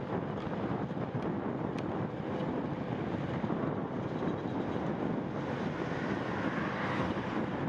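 Steady wind rush on the microphone of a camera carried by a moving bicycle, with road noise underneath.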